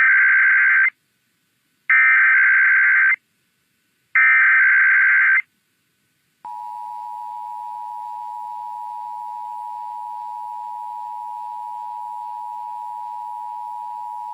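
Emergency Alert System header and attention tones opening a required weekly test alert. First come three loud bursts of SAME header data, each a screechy digital warble of about a second, with a second's gap between them. Then, about six and a half seconds in, the steady two-tone EAS attention signal starts and holds.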